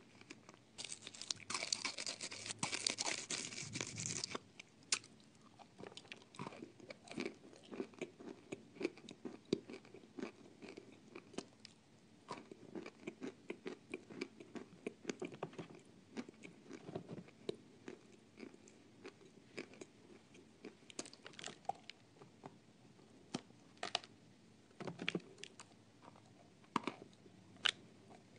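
A person biting and chewing hard, dry crunchy pieces with a loud, dense crunching in the first few seconds, then steady, scattered chewing crunches.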